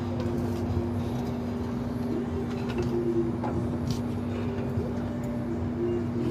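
A motor running with a steady hum and a few faint light clicks.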